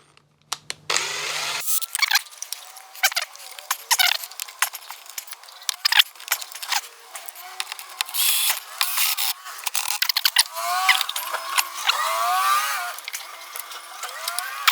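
Rapid metallic clicks, knocks and rattles of hand tools and a screw-type hose clamp being worked onto the hose at a washing machine's drain pump, with a run of squeaks about ten to thirteen seconds in.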